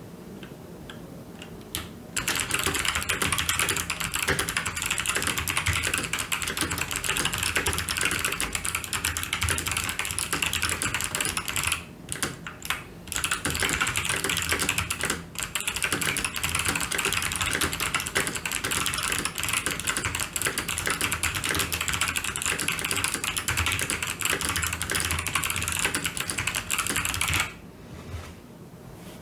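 Very fast typing on a TVS Gold Pro mechanical keyboard with clicky Kailh Box White switches: a dense, rapid run of key clicks starting about two seconds in, with two short breaks near the middle, stopping a couple of seconds before the end.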